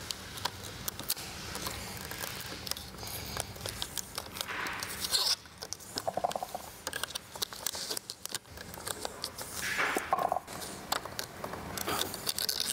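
Black vinyl wrap film being handled and pressed onto a car's grille trim: crinkling, light scraping and small clicks, with two longer rasps about five and ten seconds in.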